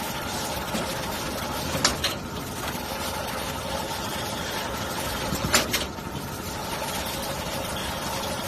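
Veneer stitching machine running steadily in operation, joining core veneer sheets, with a sharp clatter twice, about 2 seconds in and again about 5.5 seconds in.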